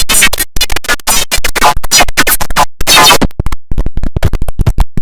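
IBM OS/2 Warp 3 shutdown sound, heavily processed by stacked sound effects. It is loud and chopped into rapid stuttering fragments, several a second, with abrupt cut-offs and short silent gaps.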